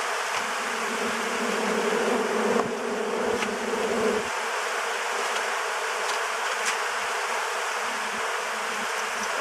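Honeybees buzzing thickly all around, a steady dense hum from a swarm of bees in the air. A deeper part of the hum drops away about four seconds in.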